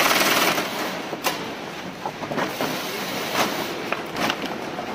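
Heavy-duty FIBC bulk-bag sewing machine running in a short burst for about the first second, stitching woven bag fabric, then stopping. After it come scattered clicks and rustling.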